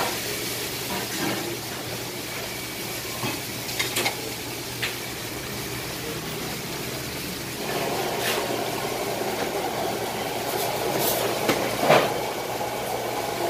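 Liquid running from the tap of a stainless-steel drink urn into a plastic cup over a steady background rumble, with a few light clicks and knocks. The rumble grows louder about eight seconds in.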